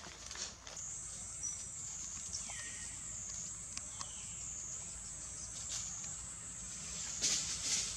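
Steady high-pitched drone of forest insects, with two short falling bird calls in the middle and a burst of rustling near the end.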